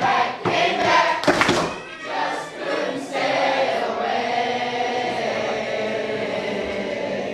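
A group of voices singing together, holding one long sustained chord from about three seconds in. Before that, mixed voices and a brief sharp hit about a second in.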